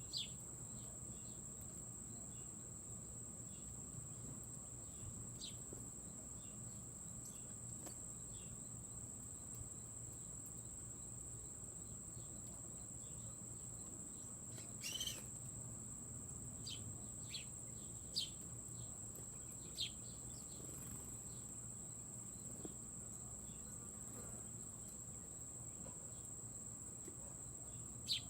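Steady high-pitched summer insect chorus, with a few short bird chirps breaking in, the loudest about 15, 18 and 20 seconds in and one at each end.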